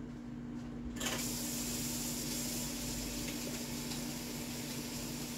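Kitchen sink tap turned on about a second in, water running steadily into the sink, over a steady low hum.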